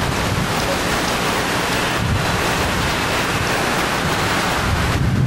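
Steady wind noise rumbling on the camcorder microphone, an even rushing hiss with a heavy low end.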